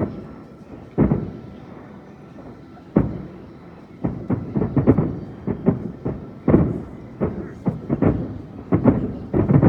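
Aerial fireworks shells bursting: single bangs about a second or two apart at first, then from about four seconds in a quickening run of many bangs close together.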